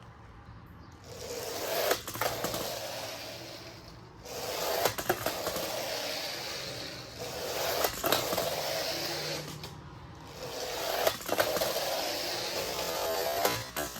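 Lego Technic DIGatron model converted into a bulldozer, its plastic drive and parts whirring and scraping in three spells of a few seconds each, with scattered clicks and knocks.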